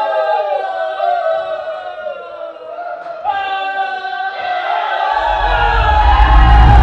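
Background music of massed, choir-like voices holding and sliding between long notes, with a deep bass swell building over the last couple of seconds.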